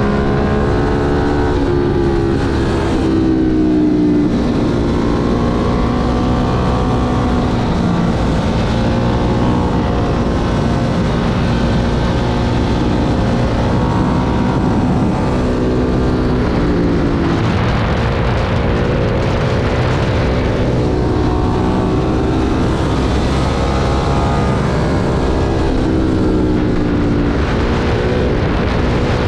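Ducati Monster 1200's L-twin engine under hard riding: the revs climb and fall again and again as it runs up through the gears and backs off for the bends.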